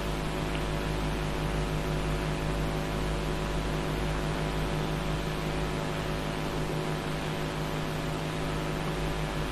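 Steady electrical hum with many overtones over an even hiss, unchanging throughout.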